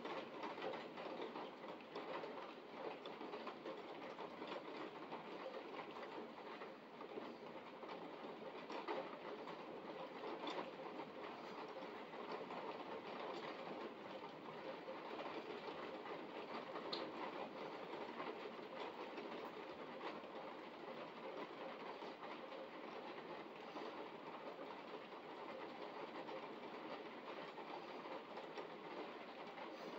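Thunderstorm rain hitting a window and the ground outside, a steady, dense stream of countless small drop impacts.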